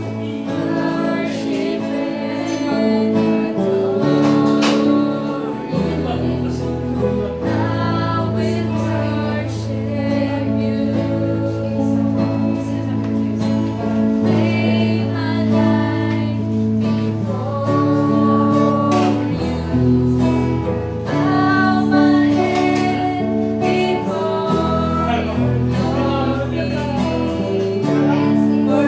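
A worship song played live on an acoustic guitar and an electronic keyboard, with women singing along. The keyboard holds low bass notes that change every few seconds under the strummed guitar.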